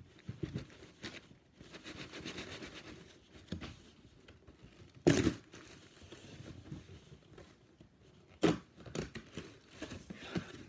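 Gift wrapping being torn and crinkled by hand as a present is opened, in irregular rustles with two louder sudden sounds about five and eight and a half seconds in.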